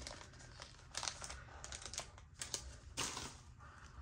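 Trading cards being handled and slid into plastic card shells: scattered light clicks and plastic rustles, with a louder rustle about three seconds in.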